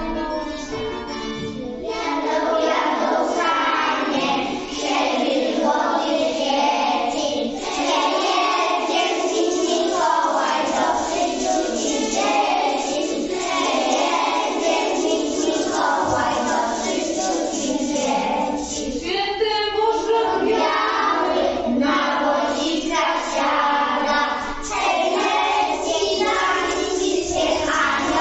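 A group of young children, about a dozen six-year-olds, singing a song together in phrases with short breaks between them.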